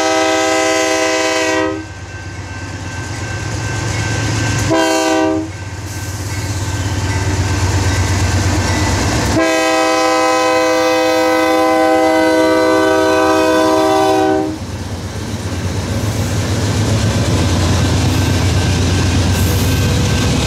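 BNSF diesel freight locomotives passing close by and sounding their air horn: a long blast ending about two seconds in, a short blast near five seconds, then a long blast of about five seconds. Under and after the horn, the locomotives' diesel engines rumble steadily as the freight cars roll past on the rails.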